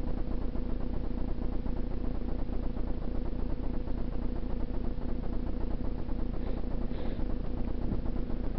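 A motor humming steadily at constant speed over a low rumble, with two faint high chirps near the end.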